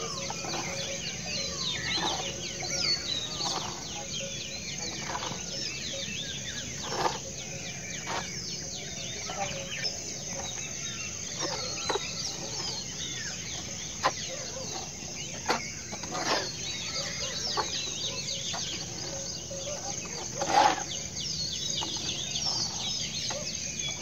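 Steel hoes scraping and chopping through a heap of wet cement mortar on a concrete floor in irregular strokes, one stroke louder than the rest a few seconds before the end. Birds chirp and call throughout.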